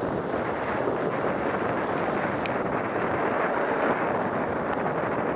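Steady rush of wind over the camera's microphone while riding a longboard fast down a wet road, mixed with the hiss of the wheels on wet asphalt.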